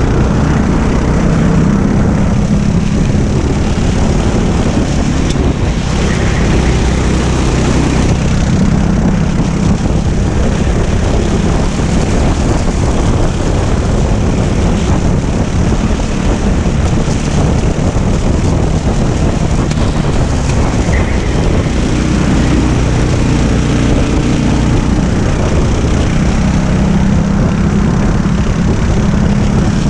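Racing kart's engine heard onboard at speed, its pitch rising and falling several times as it pulls down the straights and slows for corners, under heavy wind noise on the microphone.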